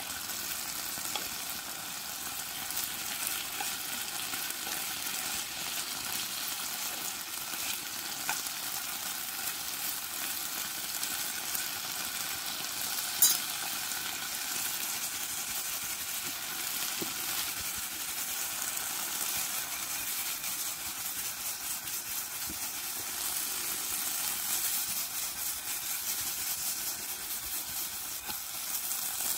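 Diced chicken sizzling and spitting in a frying pan over a small wood-burning stove, with a spatula stirring it at the start. One sharp pop about halfway through.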